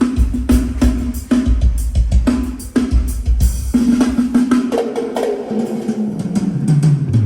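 Acoustic drum kit played at a sound check: evenly repeated kick and snare strokes, then about halfway through a tom fill that steps down from the high toms to the low toms.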